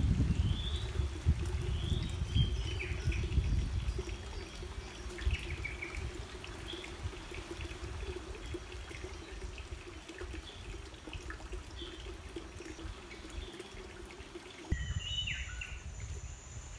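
Birds calling in short rising chirps about once a second, over a steady low hum and low rumbling noise that is loudest at the start and fades over the first few seconds. The hum cuts off suddenly near the end.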